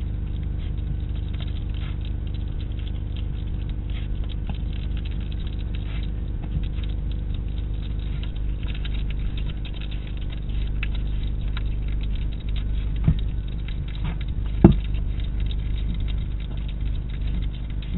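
European hedgehog eating from a food bowl: a dense run of small chewing clicks and smacks over a steady low hum. Two sharper knocks come in the later part, the second the loudest sound.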